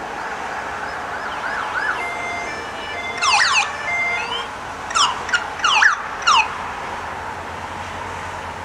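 Police escort siren giving short bursts of quick falling whoops, several in a row through the middle, with a brief steady tone just before them.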